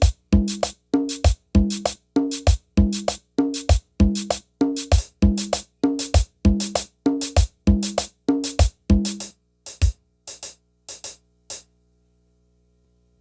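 A single drum struck over and over in a steady, even rhythm, each hit sounding alike, as in a sound check. The hits space out and stop near the end.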